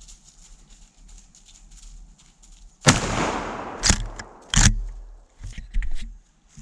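A sudden loud bang about three seconds in, with a tail that fades over about a second, then two sharp knocks and a few fainter clicks.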